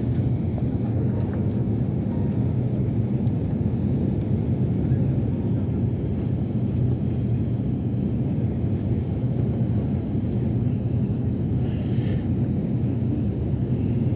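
Airbus A330 jet airliner: a steady low engine rumble, even in level throughout, with a brief hiss about twelve seconds in.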